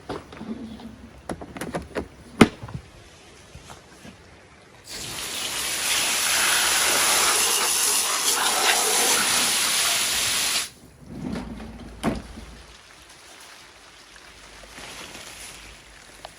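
A steady rush of water, like a tap or spray running, that starts abruptly about five seconds in and cuts off sharply about six seconds later. Scattered clicks and knocks come before and after it.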